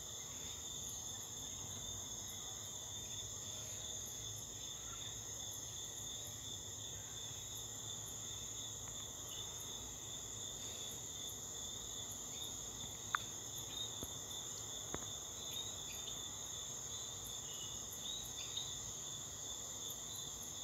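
Steady high-pitched insect chorus, with two faint clicks a little past the middle.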